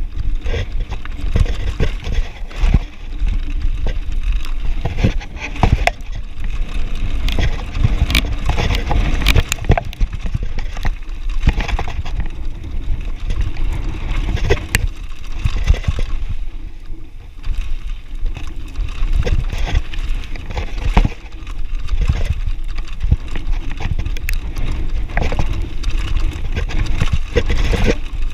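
Mountain bike descending a rocky trail: tyres crunching over loose stones, with frequent sharp knocks and rattles from the chain and frame over the bumps, under a heavy rumble of wind and rough riding on the camera microphone. The clatter eases briefly a little past halfway.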